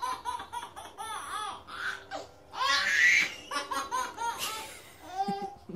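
A baby laughing hard in a string of short, high-pitched bursts, loudest about three seconds in.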